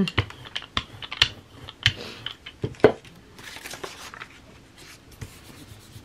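Irregular clicks and taps with brief paper rustling as a paint roller is set down on a printing plate and a paper print is handled and pressed flat onto it. The taps are densest in the first three seconds, with the sharpest click a little before three seconds in, then thin out.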